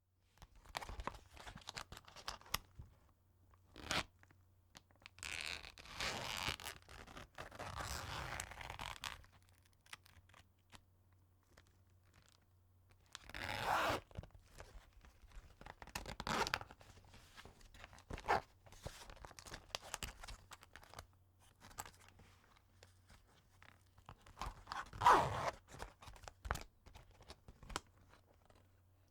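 Zipper being pulled open and closed, again and again: a series of separate rasping zips a second or two long, some quick and some slower and longer, with small clicks of handling between them. The loudest zip comes about 25 seconds in.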